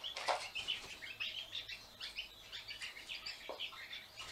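Roulroul (crested wood partridge) chicks peeping, a fairly faint run of short high chirps, several a second, with a couple of slightly louder calls.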